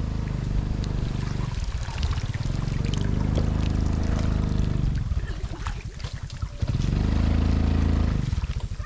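Running water trickling, over a low droning engine hum that fades and comes back a few times.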